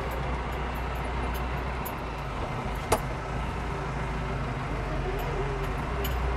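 Landini Blizzard 65 tractor's diesel engine running steadily, heard inside the cab while it manoeuvres. There is a single sharp knock about three seconds in.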